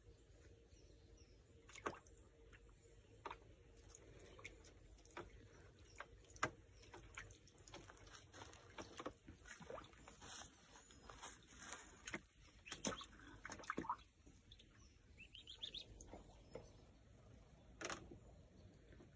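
An Australian wood duckling splashing and dabbling in a shallow plastic tub of water: faint, scattered small splashes and drips, most frequent in the middle, with a few sharper splashes.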